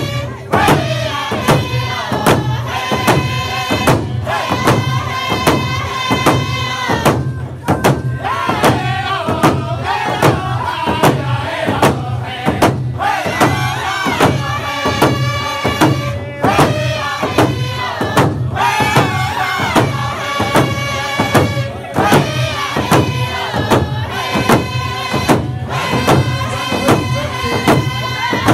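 A group of men singing together while beating round hide hand drums with sticks, in a steady even beat.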